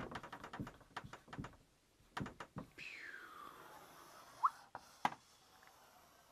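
Marker writing on a whiteboard: quick taps and strokes at first, then a long squeak falling in pitch as a line is drawn across the board, a short rising squeak and a last tap.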